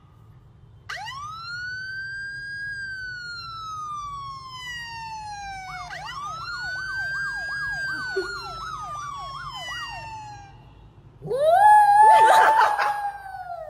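A siren sound plays: one long wail rising then slowly falling, then a second wail with a fast up-and-down warble. Near the end a small white poodle howls along, louder than the siren.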